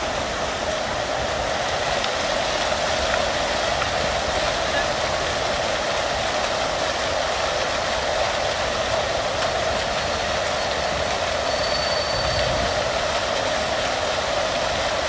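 Steady splashing of a fountain's water jets and falling-drop water display into a stone basin.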